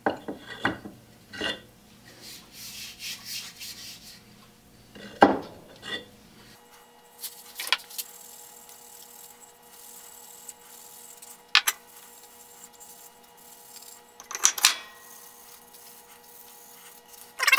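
Rubbing and scraping on wooden saw handles, with scattered light knocks and clicks of wood on the workbench as the handles are picked up and set down. Part of it is played sped up.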